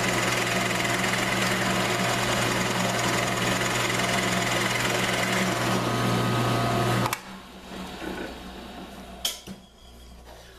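Drill press running steadily as a 1-inch Forstner bit bores into a hardwood block. About seven seconds in, the hum cuts off sharply, and a single knock follows near the end.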